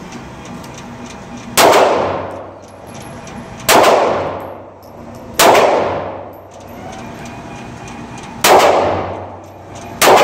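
Five shots from a Springfield XD(M) 4.5-inch 9mm pistol, fired one at a time about two to three seconds apart. Each is a sharp crack followed by a long ringing echo off the walls of an indoor range.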